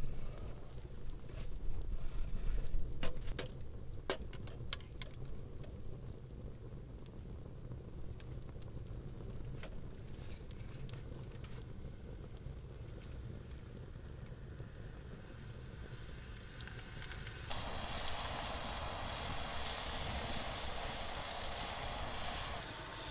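Wood campfire crackling, with sharp pops scattered through the first half over a low rumble. About three-quarters through a louder steady hiss comes in suddenly and stops just before the end.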